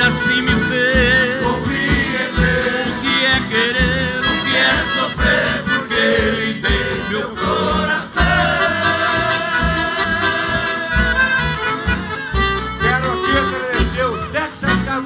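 Live band playing Brazilian caipira music: a wavering melody line over a steady bass beat.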